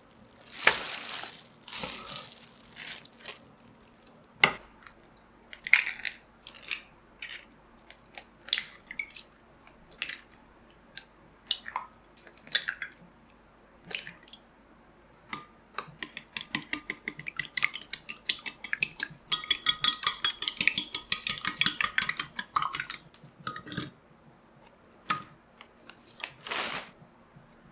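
Kitchen utensils and dishes knocking and clattering during food preparation: scattered taps and clinks, then a long run of rapid, even taps for several seconds in the second half.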